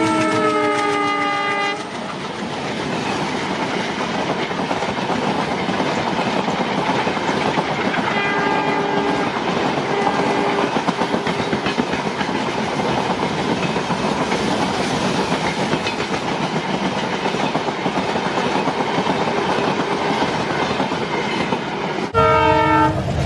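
A train horn sounding and falling in pitch at the start, then the steady rumble and clatter of a train running on the rails. A fainter horn sounds about eight seconds in, and after an abrupt change near the end a loud horn blast sounds.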